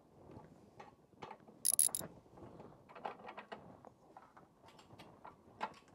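Hand ratchet clicking in short runs as the 18 mm brake caliper support bracket bolts are turned in, with a loud cluster of sharp metallic clicks just before two seconds in.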